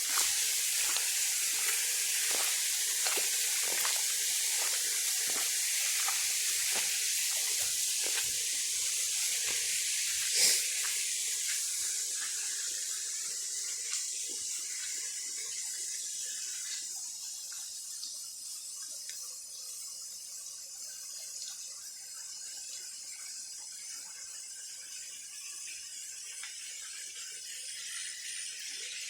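Water hissing steadily with many small ticks and splashes, then fading gradually to a quieter hiss after about twelve seconds.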